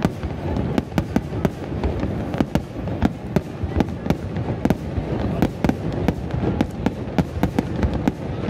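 Star mine fireworks barrage: a rapid, irregular string of aerial shell bursts, several sharp bangs a second over a continuous low rumble.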